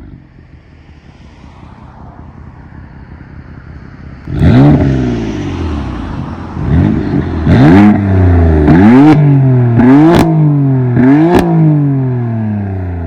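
BMW M3/M4 twin-turbo inline-six exhaust, with its exhaust valves modified to stay open, idling and then free-revved in about six quick throttle blips, the later ones ending in sharp pops and cracks as the revs drop.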